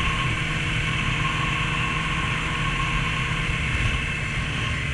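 Motorcycle engine running at a steady cruise, with wind and road noise on the rider's microphone.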